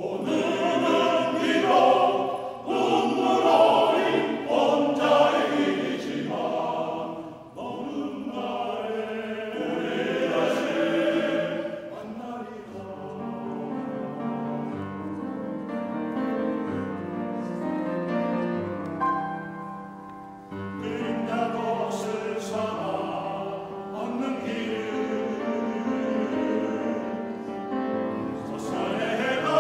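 Men's choir singing with grand piano accompaniment. The choir comes in loudly at the start, sings more softly through the middle, then builds again toward the end.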